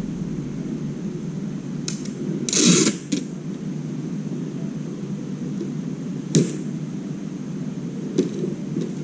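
A steady low hum, with a short rustling scrape about two and a half seconds in and a few sharp clicks, the loudest a little past six seconds in.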